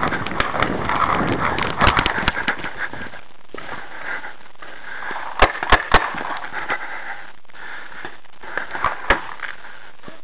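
Paintball markers firing: sharp pops, a cluster about two seconds in, a quick run of three a little past halfway and a single one near the end, over a rustling noise in the first three seconds.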